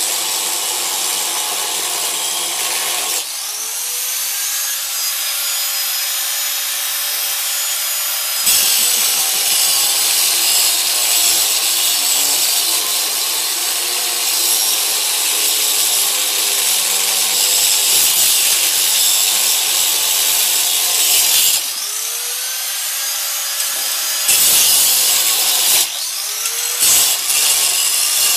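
Angle grinder cutting through a seized steel U-joint held in a vise, a loud harsh grinding. Several times the wheel eases off the metal and the motor whine rises before it bites in again.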